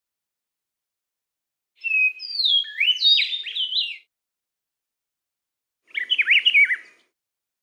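Songbird song in two phrases: a run of clear whistled notes sliding up and down, about two seconds long, then after a pause a shorter burst of quick zigzagging notes.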